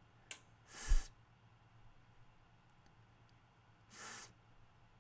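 A voice saying the unvoiced "th" sound on its own twice, each a short breathy hiss about three seconds apart, with a small mouth click just before the first.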